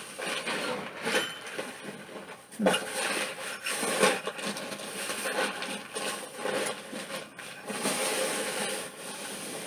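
Rustling and light irregular knocks of things being rummaged through in a bag as someone searches for an item.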